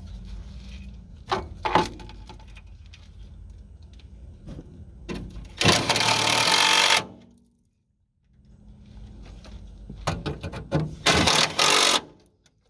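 Power drill driving screws in two runs of about a second each, with clicks and knocks of parts being handled between them.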